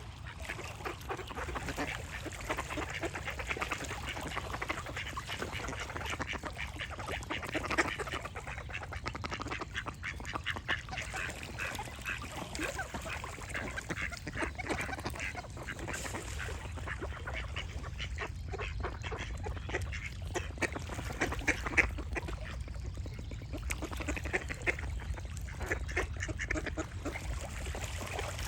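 Ducks quacking almost without pause, short calls overlapping, over a low steady rumble.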